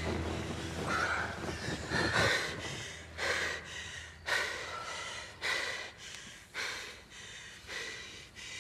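A man and woman breathing heavily during sex, with a sharp gasping breath about once a second in a steady rhythm.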